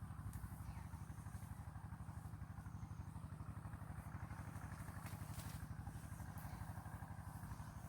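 A small engine running steadily at idle, a low even throb, with a few faint clicks in the second half.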